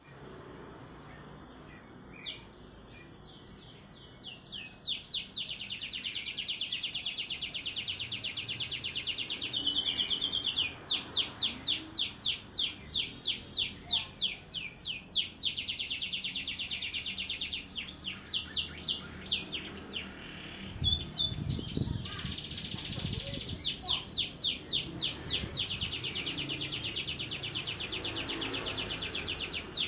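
Canary singing a fast, tightly packed song. Long buzzing rolls of very rapid notes alternate with runs of separate high chirps at about four a second. A brief low rumble comes about two-thirds of the way through.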